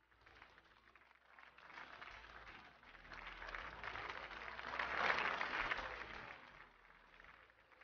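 Audience applause that builds steadily, peaks about five seconds in, then dies down.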